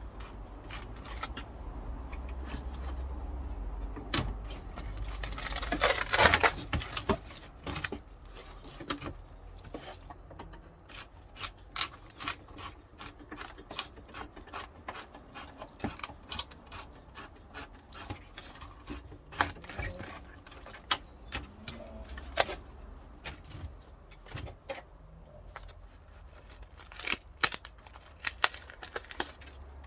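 Clattering, knocking and crunching as old crumbled timber and a kitchen-unit offcut are pulled out from inside a wooden door. Sharp knocks are scattered throughout, with a louder crunching burst about six seconds in.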